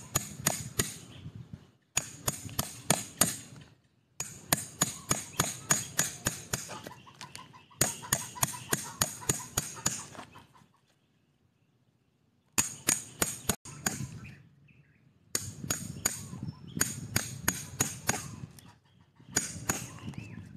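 Hammer striking a steel chisel to gouge out the hollow of a bamboo-root mortar: runs of sharp taps about three a second, broken by short pauses and a longer near-silent break past the middle.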